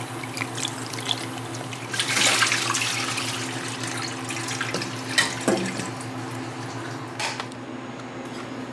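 Kitchen tap running into a stainless steel bowl while fruit is rinsed by hand under the stream, splashing loudest about two seconds in, with a few sharp knocks around the middle. The running water stops near the end, leaving a steady low hum.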